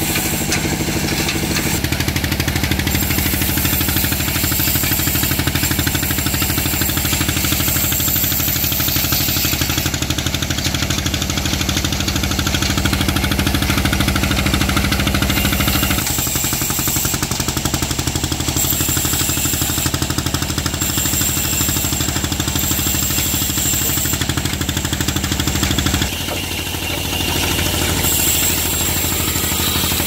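Engine running steadily to drive a sawmill's line shaft and flat-belt pulleys, an even, rapid mechanical beat. Its tone shifts slightly a couple of times.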